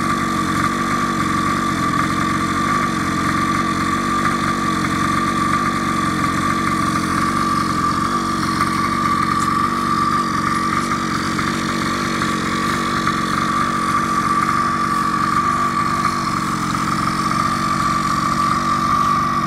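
Small engine of a mini pocket-quad ATV idling steadily, with a constant high tone riding over the low engine note.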